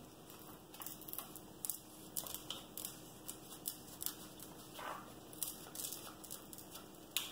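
Faint crinkling and small crackles of a diamond painting canvas's protective release sheet being peeled back at the corner and handled, with a sharper crackle near the end.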